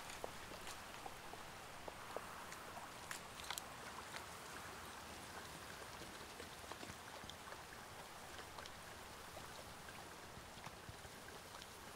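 Faint, steady trickle of a shallow stream, with scattered small clicks and splashes, most of them in the first few seconds.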